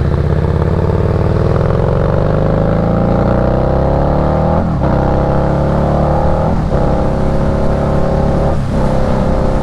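2008 Harley-Davidson Night Rod Special's liquid-cooled V-twin engine pulling under acceleration, its note climbing steadily and then broken by three quick gear changes about two seconds apart.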